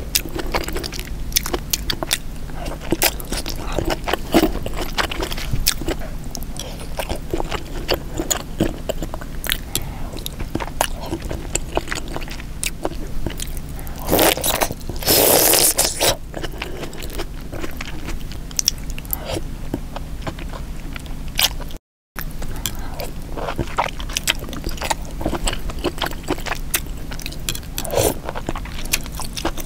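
Close-miked eating of a sauce-soaked king crab seafood boil: wet chewing, lip smacks and small crunches throughout, with a louder, longer crunchy bite into a corn cob a bit before halfway. The sound cuts out for a split second about two-thirds of the way through.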